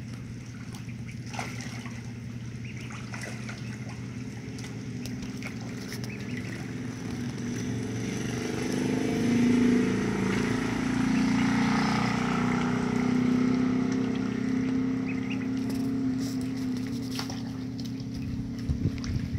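A motor running with a steady hum that grows louder about eight seconds in and eases off near the end, over faint water sounds.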